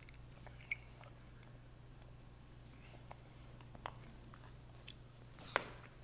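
Faint eating sounds from a child working on a chicken wing: quiet chewing with a few short, sharp wet clicks, the loudest near the start, about four seconds in and near the end, over a low steady hum.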